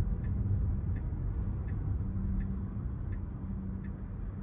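Low road and tyre rumble inside a Tesla Model 3's cabin as it drives off, with the turn signal ticking evenly about once every 0.7 seconds.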